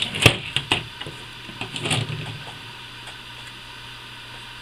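Plastic and metal air-rifle parts handled on a tabletop: a few sharp clicks and knocks in the first second, a softer rustle and clatter about two seconds in, then only a steady low hum.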